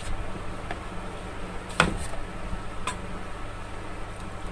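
A spoon stirring dry flour in a plastic bowl, giving a few light clicks and scrapes against the bowl, the sharpest about two seconds in, over a steady low hum.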